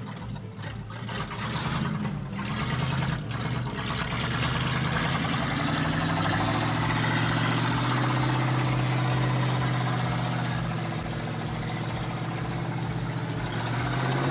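An old logging truck's engine running under a heavy load, climbing in pitch over the first few seconds and then holding steady.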